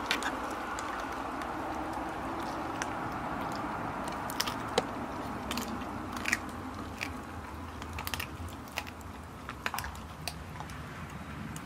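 A Dalmatian chewing and crunching on a hard chew, with irregular sharp cracks each time it bites down, over a steady background noise.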